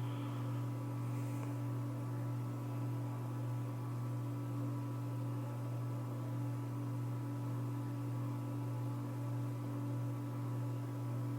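Emerson ceiling fan's motor running with a steady low electrical hum.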